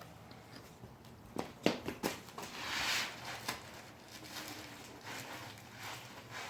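Handling noises: a few light knocks and clicks, with a short rustle a little before the middle.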